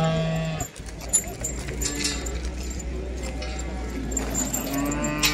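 Livestock market hubbub: background voices of people talking, with short steady calls from livestock at the start and near the end over a steady low rumble.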